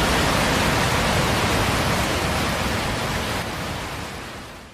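Steady rushing-water noise, like floodwater or downpour, that fades out over about the last second.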